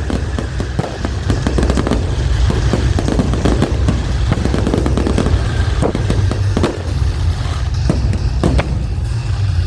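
Fireworks finale: a dense barrage of rapid, irregular bangs and crackling over a steady low rumble.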